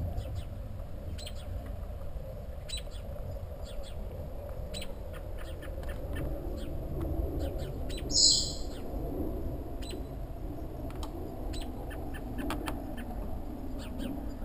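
Birds chirping with many short calls, and one louder, high-pitched call about eight seconds in, over a steady low rumble.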